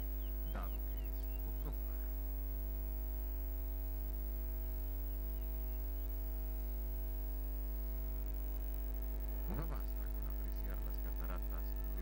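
Steady electrical mains hum with a stack of overtones, with a few brief, unidentified chirp-like sounds over it about half a second in, near two seconds, and around ten seconds in.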